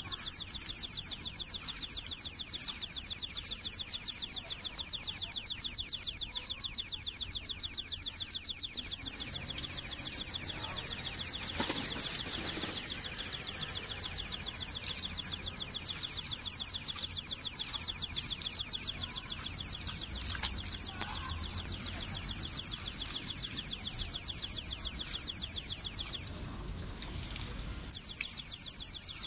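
Ultrasonic animal repeller giving off a loud, high-pitched electronic tone that pulses rapidly and steadily. About three seconds before the end it cuts out abruptly for a second and a half, then starts again.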